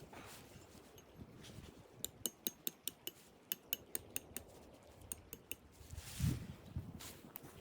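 A quick run of small, sharp clinks of hard objects, about fifteen over three and a half seconds, then a single dull thump near the end.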